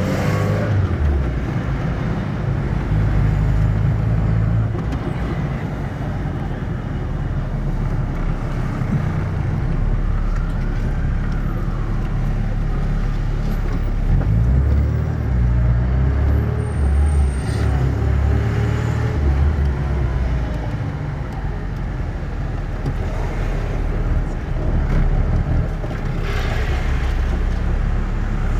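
1990 Fiat Uno 60S's 1.1-litre four-cylinder engine and road noise under way, heard from inside the cabin, swelling and easing with the driving. One cylinder is not firing because of a burnt valve, and the mechanic says this makes the car run unevenly.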